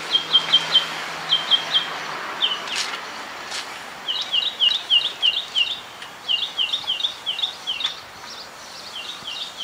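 A small bird chirping in quick runs of repeated high notes, several groups of three to six chirps at about four or five a second, with short gaps between the runs.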